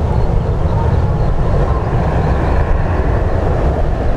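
Boeing 767-300 jet climbing away after takeoff, its engines a steady low rumble.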